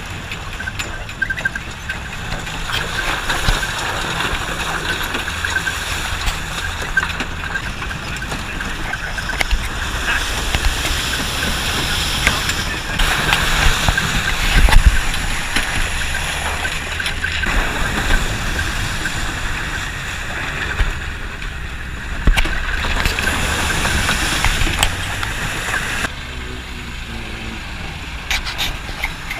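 A vehicle engine running steadily, with scattered knocks and rattles and faint voices in the background.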